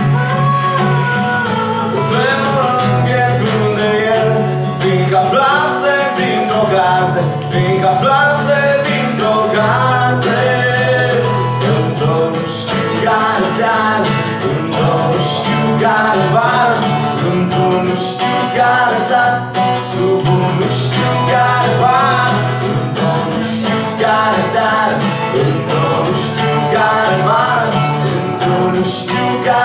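Live band music: a woman singing over strummed acoustic guitar and electric guitar.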